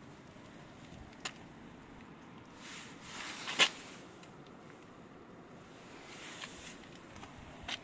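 Faint rustling from handling a phone camera and moving about in a car interior, with a few light clicks. The loudest is a sharp click about three and a half seconds in, at the end of a brief swell of rustling.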